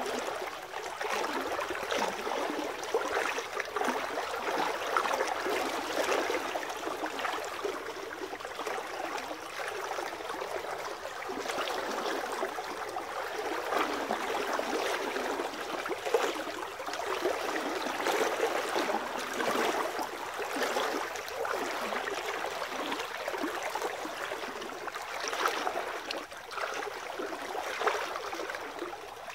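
Shallow stream water splashing and sloshing around legs as people wade through it, irregular splashes over the steady rush of the water.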